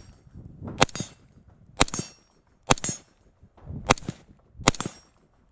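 Five rifle shots from a BCM 14.5-inch MK2 ELW AR-15 carbine in 5.56 mm, fired about one a second. The recording's sound drops out between the shots.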